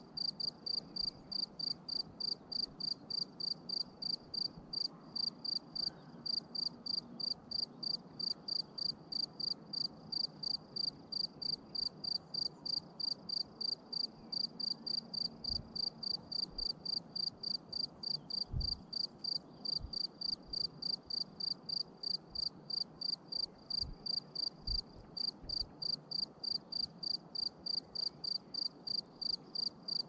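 A cricket chirping steadily: short, high-pitched chirps repeating evenly, about two to three a second.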